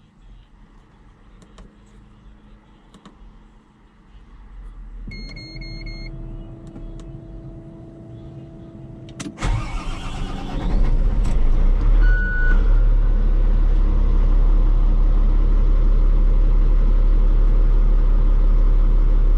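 Volvo L70F wheel loader being started: a short beep and a rising whine that then holds steady about five seconds in, then the diesel engine cranks and catches about nine seconds in and runs loud and steady, with another short beep soon after.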